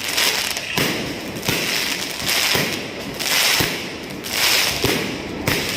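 Fireworks going off in a dense, continuous crackle, with sharp bangs about once a second.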